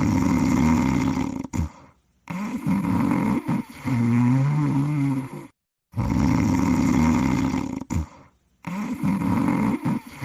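Snoring sound effect, looped: a rough snore is followed by a longer one with a wavering low hum. Dead silence falls between each pair, and the cycle repeats about every six seconds.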